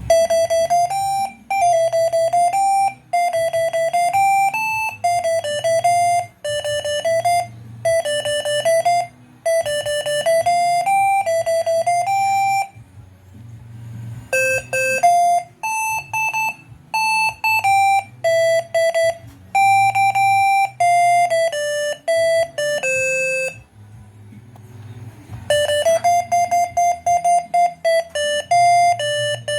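Basuri six-trumpet telolet air horn playing a melody of short, stepped notes in three phrases, with brief pauses about twelve seconds in and again near twenty-four seconds. A low steady hum runs underneath.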